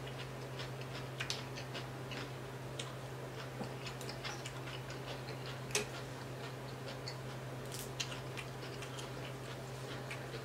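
Quiet close-up chewing of a mouthful of coleslaw: soft, irregular wet mouth clicks and smacks, over a steady low hum.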